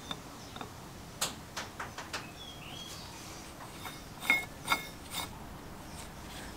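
Light clicks and taps of the black top cap of a vintage Speedy Sprayer air compressor being seated and turned by hand on its finned shroud. A few soft clicks come about a second in, then two or three sharper clicks with a short ring about four to five seconds in.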